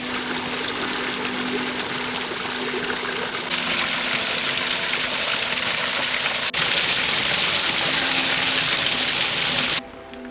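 Flowing water of a creek or small cascade, a steady rushing that gets louder about a third of the way in and again after a brief break past the middle, then cuts off abruptly near the end.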